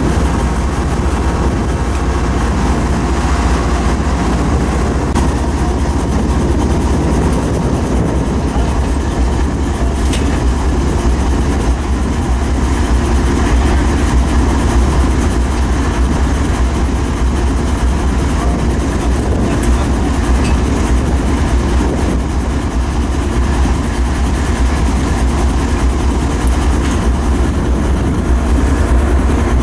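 Diesel-electric freight locomotives idling: a steady, deep engine hum with no change in pace.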